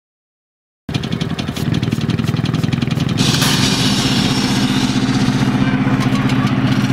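Yerf-Dog go-kart's small Tecumseh engine idling steadily, cutting in abruptly about a second in; a brighter hiss joins it about three seconds in.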